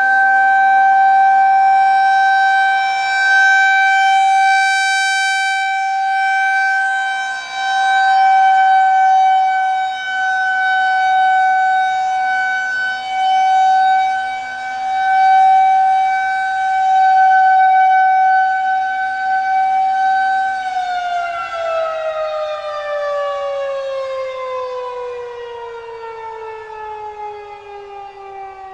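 Federal Signal 2001-130 rotating electromechanical siren sounding a steady single-tone Full Alert, its loudness swelling and fading every few seconds as the rotating head sweeps past. About three-quarters of the way through the signal ends and the siren winds down, its pitch falling steadily.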